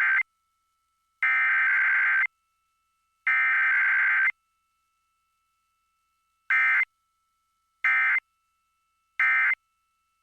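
Emergency Alert System digital data bursts: a harsh two-tone warble near 1.5 and 2 kHz, sent in separate bursts with silence between them. The end of one burst is followed by two more header bursts about a second long, then three short end-of-message bursts about a second and a half apart.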